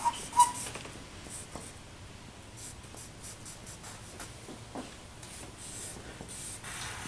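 Stick of charcoal scratching across drawing paper in many short strokes, with two brief sharp squeaks near the start.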